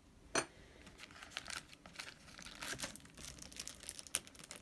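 Plastic zip bag crinkling and crackling as bagged brass knuckles are handled, with a sharp knock about a third of a second in and a sharper click near the end.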